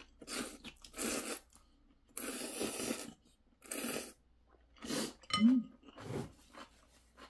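Noodles being slurped from a bowl of spicy crab ramen in a run of short, noisy slurps, with a longer slurp about two seconds in. A brief hum from the eater about five seconds in.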